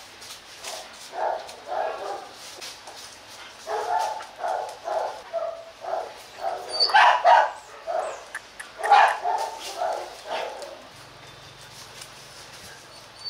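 H'mong bobtail dogs barking and yipping in a string of short, irregular calls, loudest about seven and nine seconds in.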